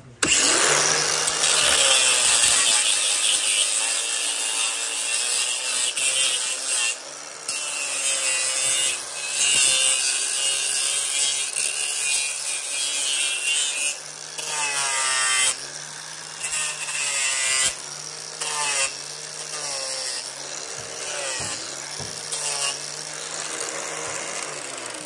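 Handheld electric angle grinder with an abrasive disc grinding down a mule's hoof wall: a loud, hissing grind over the motor's steady hum, starting suddenly at the beginning and dropping off briefly several times along the way.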